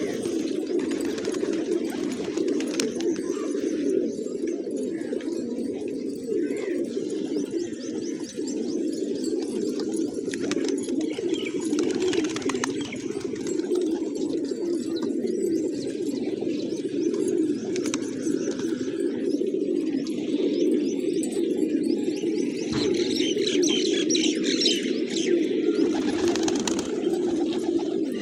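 A flock of pigeons cooing continuously, many low coos overlapping into a steady chorus. Higher bird chirps join in toward the end.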